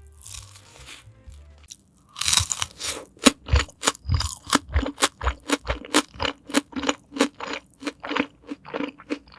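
Close-up chewing of a bite of crispy-coated fried chicken: after a brief soft scrape in the first second, loud crunches repeat evenly about three times a second.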